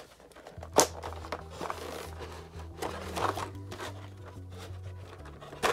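Clear plastic blister tray being handled, the plastic crackling and clicking, with a sharp snap about a second in and another near the end. Soft background music with a low bass line comes in about half a second in.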